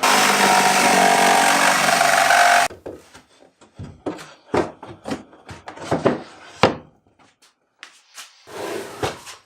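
Jigsaw cutting through the wooden sidewall of a dust box, running loud and steady for about two and a half seconds, then stopping abruptly. It is followed by a scatter of sharp knocks and taps.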